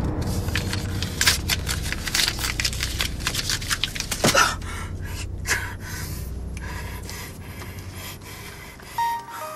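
A man crying: ragged, gasping sobs and breaths, with one voiced sob about four seconds in, easing off into quieter, sparser breathing.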